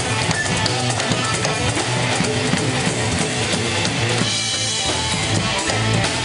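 Live band playing with a steady drum beat: electric guitar, electric bass, drum kit, congas and hand percussion.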